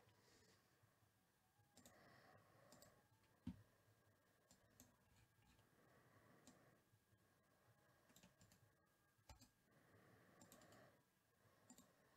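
Near silence with faint, scattered clicks of a computer mouse and keys.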